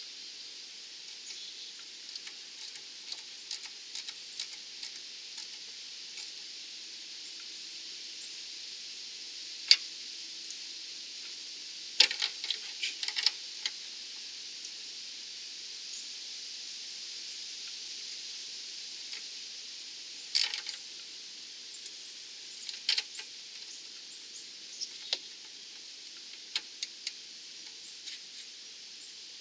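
Scattered sharp metallic clicks and clinks of a ratcheting wrench and tools at work on a seized sway bar link nut, some singly and some in short quick runs, over a steady high hiss.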